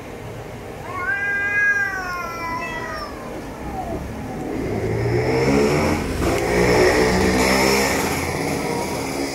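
A cat's drawn-out threat yowl, wavering and then falling away, about a second in, from one of two cats squaring off. In the second half a vehicle engine swells and fades as it passes.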